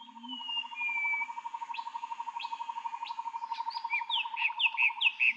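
Birds singing in open country: clear descending whistles, then a run of short downslurred notes near the end. Under them a fast, even pulsing trill runs and stops just before the end, with a faint low hum beneath.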